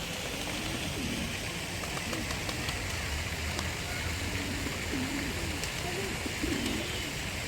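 Low, repeated cooing of doves over a steady hiss, with faint voices in the background.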